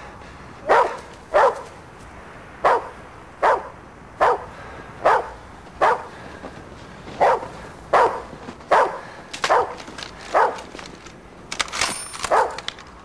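A dog barking over and over in a steady rhythm, about fourteen barks, roughly one a second.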